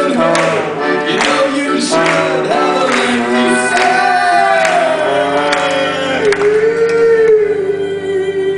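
A live band playing a song with voices singing over it; the voices settle onto one long held note for the last couple of seconds.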